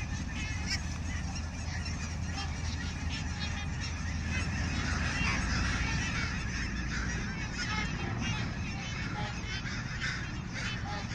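A large flock of migrating birds calling all at once in a field, a dense, continuous chorus of many overlapping calls, over a steady low rumble.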